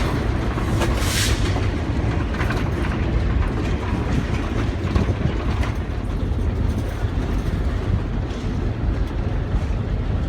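Skunk Train passenger car rolling along the track: a steady rumble of wheels on rails, with a brief hiss about a second in.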